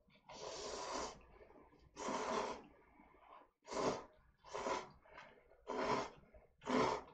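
A person slurping instant cup-ramen noodles, six short airy slurps with brief pauses between.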